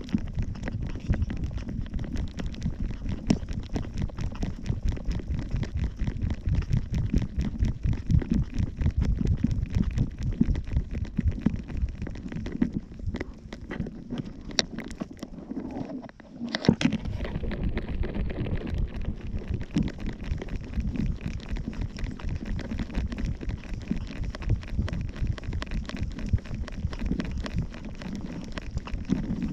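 Wind buffeting the microphone of a camera worn on a small dog's harness: a steady low rumble with frequent small knocks and rustles as the dog moves. About two-thirds of the way through it eases for a few seconds, then one sharp loud knock.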